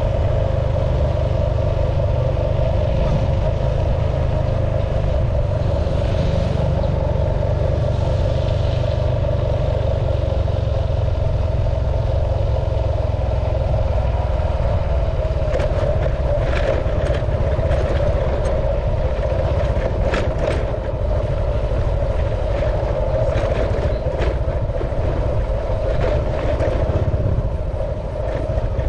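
Vehicle engine running steadily at cruising speed, with wind and road noise. From about halfway, scattered rattles and knocks come in as the vehicle moves from smooth concrete onto a rough dirt and gravel road.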